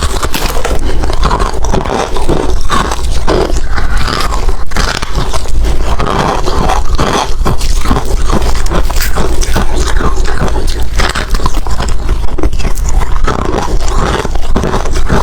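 Hard ice being bitten and chewed close to the microphone: loud, dense, continuous crunching.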